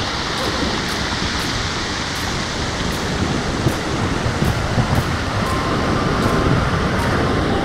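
Sea surf breaking and washing over a rocky shore, a steady rushing of foaming water.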